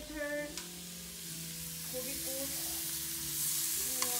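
Pork belly sizzling on the hot plate of an infrared tabletop grill: a steady frying hiss that grows slightly louder toward the end. Near the end there is a click of metal tongs.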